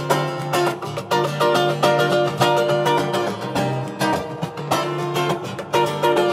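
Acoustic guitar strummed in a steady rhythm, chords played without singing.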